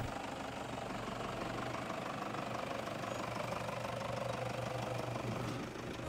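Toyota Hilux pickup's engine running at steady low revs as it crawls up a sandy, rocky 4x4 track.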